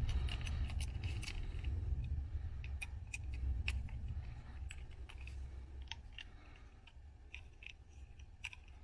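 Small steel bolts and an Allen key clicking and ticking against a metal bracket and aluminium housing as the bolts are fitted and screwed in by hand: irregular light metallic clicks over a low steady hum.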